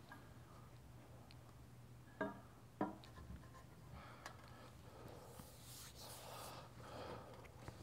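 A metal tooling plate set down on a cast-iron table saw top: two light knocks about two and three seconds in. Later a rag rubs over the plate in soft, hissy wiping strokes.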